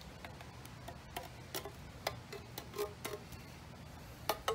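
A spoon clicking and scraping against the inside of a tin can as canned blackberries are spooned out: light, irregular ticks a few times a second, with a louder pair of clicks near the end.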